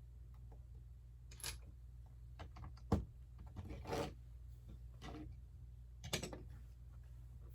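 Plastic Lego pieces being handled and pressed together: a few short clicks and rustles, the sharpest click about three seconds in, over a low steady hum.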